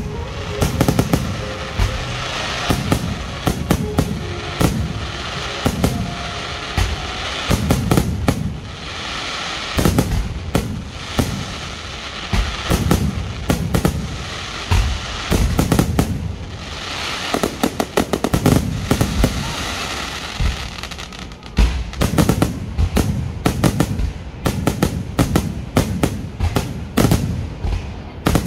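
Aerial fireworks shells bursting in rapid succession: dense sharp bangs and deep thumps throughout, with stretches of crackling sparks.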